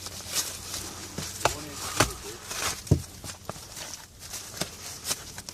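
Scattered knocks and taps with rustling as a large firework pack's cardboard and wrapping are handled and turned over.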